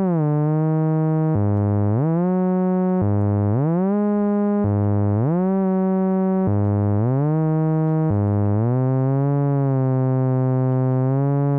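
Behringer System 55 modular synthesizer oscillator stepping through a sequence from its 960 sequential controller while the first eight notes are being tuned. The tone is continuous and slides up into a new note about every one and a half seconds, with a longer held note near the end.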